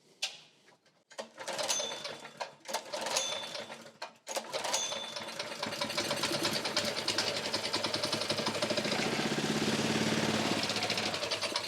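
Honda GX-series single-cylinder engine pulled over on its recoil starter three times, then firing and running for several seconds before starting to die away near the end. It runs only on the fuel or starting spray poured down the air intake: fuel isn't getting from the bowl through the carburettor, which is blocked and needs cleaning.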